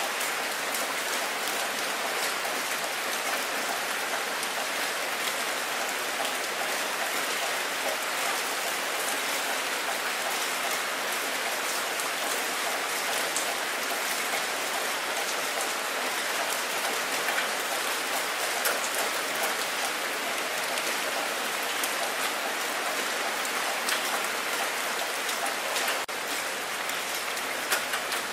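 Steady rain falling onto open water: a dense, even hiss of many small drops hitting the surface, dipping slightly in level near the end.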